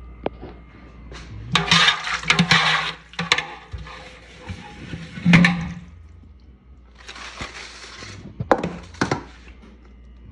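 Wet splashing and clattering as boiled chitlins are scooped from their broth with a wire mesh skimmer, in three bursts with several sharp knocks in between.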